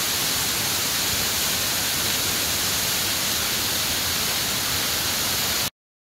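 Waterfall rushing down a steep rock face: a steady, hissing roar of falling water that cuts off suddenly near the end.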